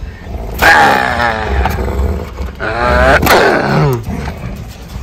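Yellow Labrador growling playfully, two long drawn-out growls while keeping hold of a plastic bottle in a keep-away game; the second growl falls off near the end.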